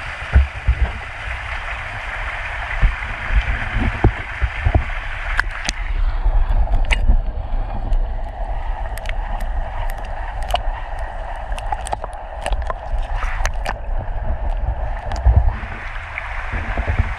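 Creek water running steadily, with a low rumble on the microphone. From about five seconds in come a series of sharp clicks and knocks, and the high hiss drops away until about fifteen seconds in.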